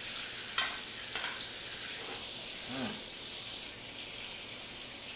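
Ribeye steak and asparagus sizzling steadily in bacon grease and butter in a cast iron skillet, the steak's fat rendering off. Two sharp clicks about half a second and a second in, from the metal spoon basting in the pan.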